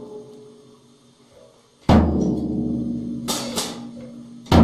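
Drum kit struck unevenly: a deep drum boom about two seconds in and again near the end, each ringing on with a low hum, and two cymbal crashes between them.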